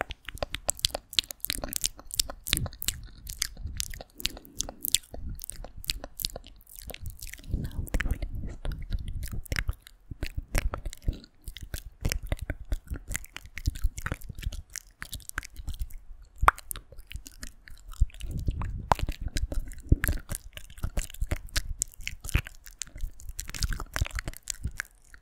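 ASMR mouth sounds close to the microphone: dense, irregular wet clicks and pops, several a second.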